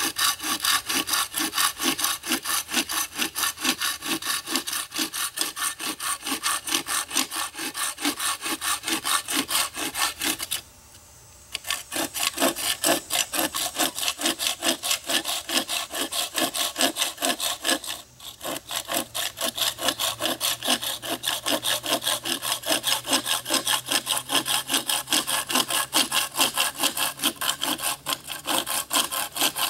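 A small hand saw cutting through the end of a wooden axe handle in quick, even back-and-forth strokes, trimming the excess wood just above the axe head. The sawing stops for about a second near the middle, then pauses again briefly a few seconds later.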